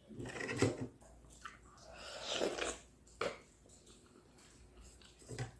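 Close-up eating sounds of soft ripe fruit being bitten and chewed: two wet, noisy bursts in the first three seconds, then two short sharp clicks.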